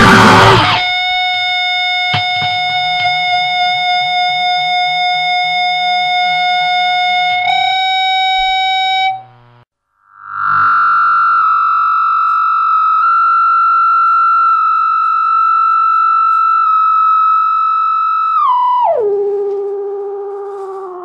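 Distorted electric guitar feedback in a punk/powerviolence recording. A dense, noisy chord cuts off, leaving one long held, ringing tone. After a brief drop-out about ten seconds in, a higher held tone starts, then slides down in pitch near the end.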